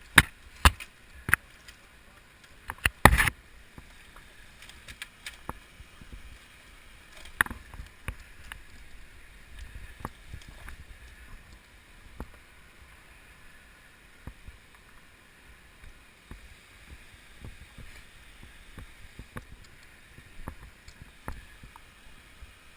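Several sharp knocks and clicks in the first few seconds, another a few seconds later, then scattered light ticks over a faint steady hiss.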